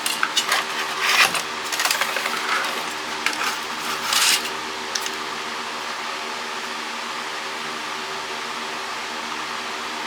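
Small hard parts from dismantled cordless phones clattering as they are handled and set down, in irregular clicks and knocks for about four seconds. After that only a steady, even hum remains.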